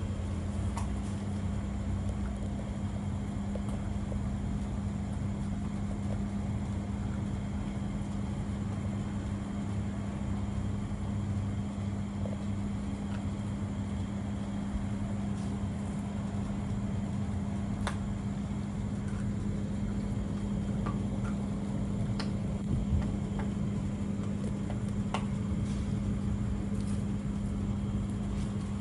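A steady low mechanical hum with a rumble beneath it, and a few faint clicks here and there.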